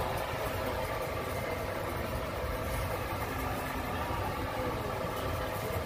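Steady running noise of an open-sided passenger cart driving along a paved road: an even low rumble with no breaks.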